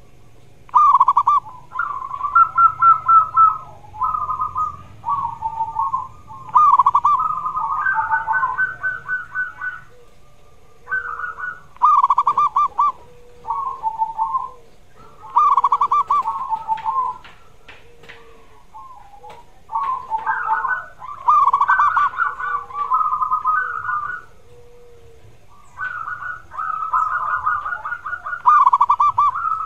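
Zebra dove (perkutut) cooing: phrases of rapid, stuttering coos, each a second or a few long, repeated over and over with short pauses between.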